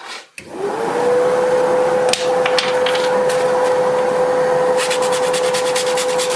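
A vacuum dust extractor drawing air through a perforated downdraft sanding table switches on, its motor rising to a steady whine. Near the end comes a fast run of scratchy strokes as a wooden disc's edge is hand-sanded with a sanding block.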